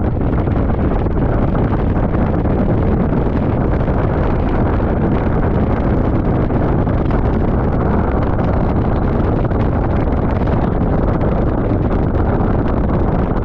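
Steady wind rush buffeting the microphone of a motorcycle-mounted GoPro, with the motorcycle's running noise, while riding along a wet road.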